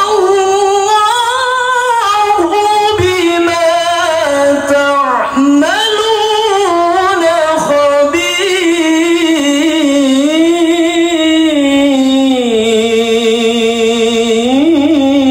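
A man reciting the Quran in the melodic tilawah style. He holds long notes and winds them through ornamented turns, rising briefly near the end and then falling away.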